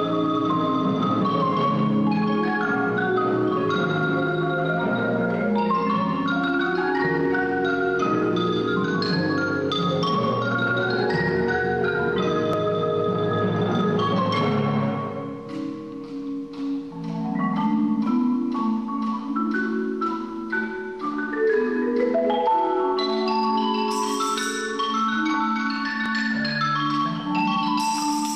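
Percussion ensemble playing, led by marimbas and other mallet keyboard instruments in a dense, flowing pattern of notes. About halfway the low notes drop out and the music thins to a lighter texture, then builds back up, with bright high splashes near the end.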